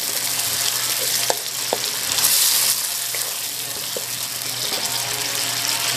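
Tuna with onion and garlic sizzling as it sautés in butter and oil in a hot pan, stirred with a utensil that knocks against the pan a few times.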